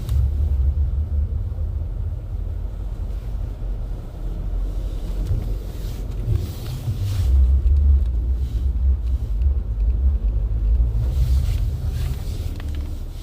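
Car tyres running over an icy, snowy road, giving a steady low rumble with a few brief crackles.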